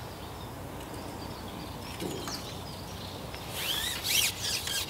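Steady low outdoor background noise, then about three and a half seconds in a small bird calls in a quick run of high chirps and trills, mixed with a few sharp clicks.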